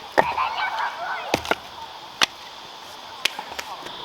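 Firewood being chopped: five sharp, irregularly spaced strikes, the loudest just after the start and a little past two seconds in.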